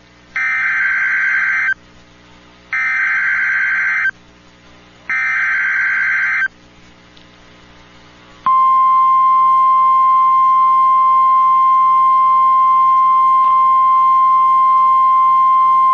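Emergency Alert System SAME header: three loud bursts of screeching digital data, each about a second and a half long, then about eight and a half seconds in a steady single-tone NOAA Weather Radio attention signal begins, announcing a Severe Thunderstorm Warning.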